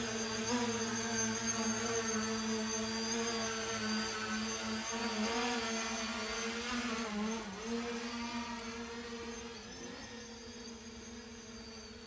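Parrot Anafi Ai quadcopter drone's rotors humming with a slightly wavering pitch as it lifts off and flies away, growing fainter from about eight seconds in.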